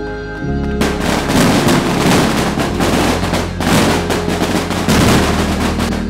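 A long string of firecrackers going off, a rapid run of sharp cracks for about five seconds starting a second in, over background music.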